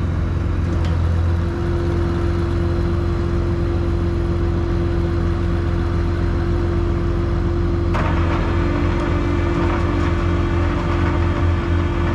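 Pickup truck driving: a steady engine hum with road noise, the noise getting louder and harsher about eight seconds in.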